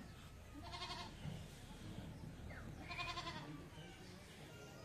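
A goat bleating twice, each call a quavering cry, about two seconds apart.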